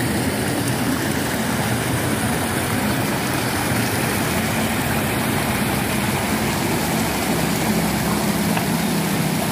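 A small engine running steadily under a broad rushing noise. Its low hum grows a little stronger in the second half.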